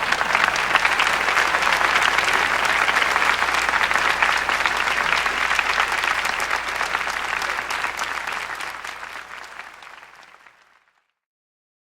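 Audience applauding, a dense patter of many hands clapping, fading out over the last few seconds.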